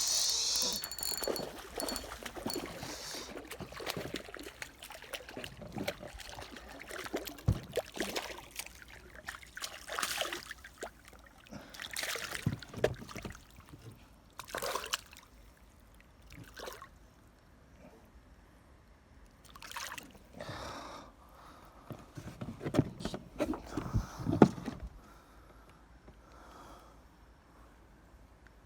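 Water splashing and trickling in irregular bursts, with scattered knocks, fading away near the end.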